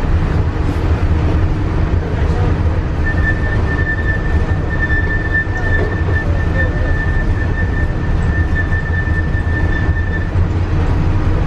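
Walt Disney World's Epcot monorail running, heard from inside the car: a steady low rumble, joined about three seconds in by a steady high whine that stops shortly before the end.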